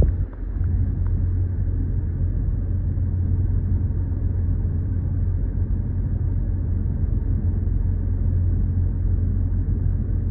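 Steady low road and engine rumble inside the cabin of a 2025 Toyota Corolla Cross hybrid cruising at 60 km/h with its petrol engine driving. The car has had full sound-deadening treatment, and this noise measures about 60 to 62 decibels.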